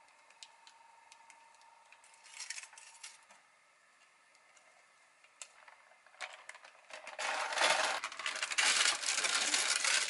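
Parchment baking paper rustling and crinkling as cookies on it are handled, much louder in the last three seconds. A few light clicks and a brief rustle come earlier.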